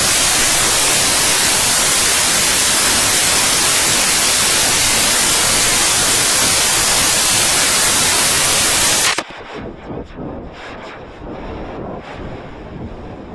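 Loud, steady white-noise static that starts abruptly and cuts off suddenly about nine seconds in, giving way to a much quieter, uneven rumbling noise.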